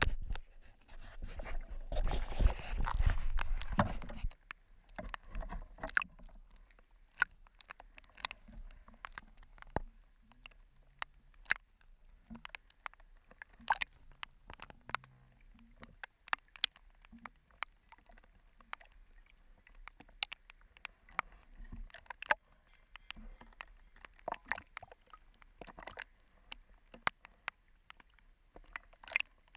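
Water rushing and splashing over an action camera at the surface for about four seconds, then quieter small splashes and lapping with many sharp ticks of water against the camera housing as the swimmer moves through the water.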